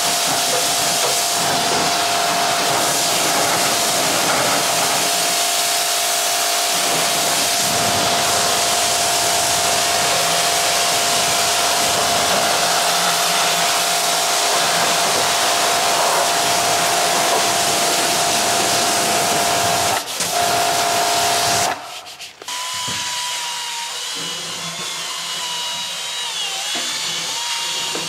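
Pressure washer spraying water onto a car's bodywork: a loud steady hiss of spray with a steady whine from the machine. It breaks briefly, then cuts off about three-quarters of the way through, leaving a quieter steady hum with a faint whine.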